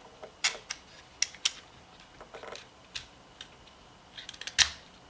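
Small metal parts of a pressure switch being handled as its contact lever is slid into the housing: irregular light clicks and taps, the loudest about four and a half seconds in.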